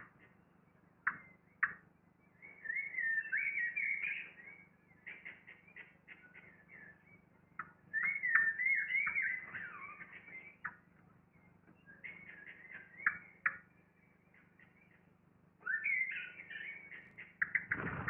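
A songbird singing three warbling phrases a few seconds apart, with short clicks between them. A faint steady low hum runs underneath.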